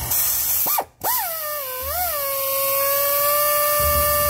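Pneumatic air ratchet with air hiss, running a dual-clutch nut down on its flywheel stud at light throttle to snug it. A short blip and a brief cut-off come first. About a second in, a steady whine starts, dips and wobbles in pitch, then holds level.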